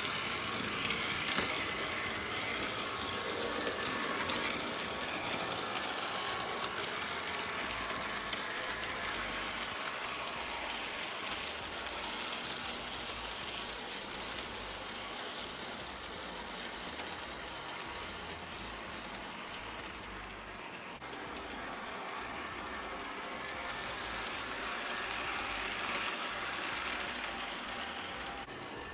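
Hornby Polly 0-4-0 model locomotive running steadily along its track, its small electric motor and wheels on the rails making a continuous mechanical running noise.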